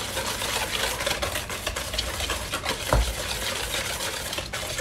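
Wire whisk beating a thick batter of mashed banana, sugar and eggs in a plastic mixing bowl: quick, repeated wet scraping strokes, with one low knock about three seconds in.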